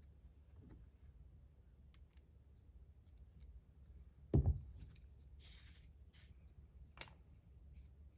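Small objects being handled on a desk: a faint click at the start, a solid knock about four and a half seconds in, then a short sliding rasp and a sharp click near the end.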